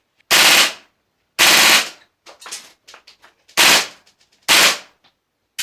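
Tokyo Marui MP7A1 gas blowback airsoft gun firing four short bursts, each about half a second, indoors at close range, the loud blowback clack of the bolt prominent in each. Fainter clicks fall between the bursts.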